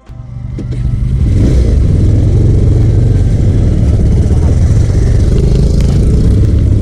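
Motorcycle engine running steadily under way, with wind rushing over the microphone; it swells in over about the first second.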